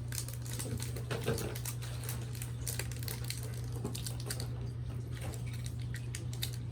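Quick light clicks and crinkles of a trading-card booster pack and cards being handled, over a steady low hum.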